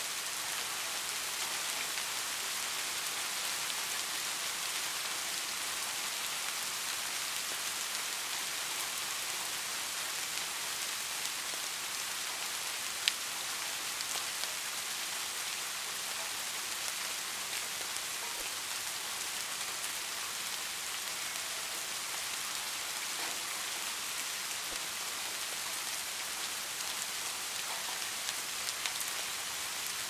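Steady rain falling, an even hiss, with one sharp tick about halfway through and a few small ticks near the end.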